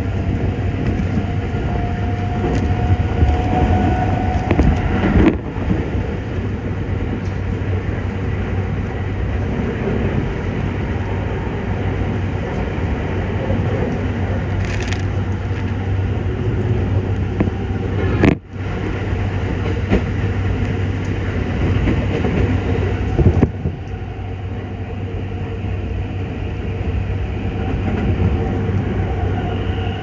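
Toei 5500-series train running at speed, heard from inside the car: a steady rumble of wheels on rail with rain crackling on the car body. A faint rising whine from the Mitsubishi full-SiC VVVF traction drive shows near the start, and the sound cuts out briefly about 18 seconds in.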